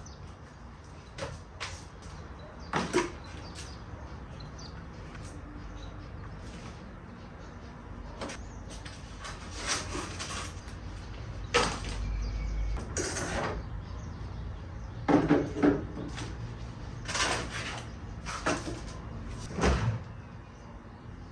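Groceries being handled and put away in a kitchen: a scattered series of about eight short knocks and thumps as packages are set down and doors open and close.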